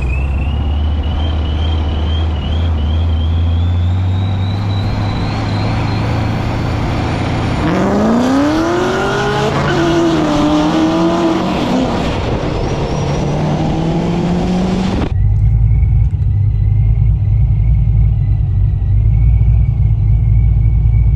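A car engine pulling under acceleration: a high whine climbs in small steps, then a loud rush with the engine note rising in pitch for several seconds. Partway through it cuts abruptly to a steady low rumble.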